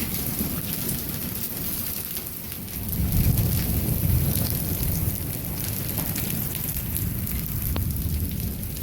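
Torrential rain and hail coming down, with scattered sharp clicks of hailstones striking. A low rumble of thunder swells about three seconds in.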